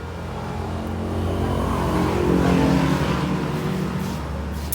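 An engine running, growing louder to a peak about two and a half seconds in and then easing off.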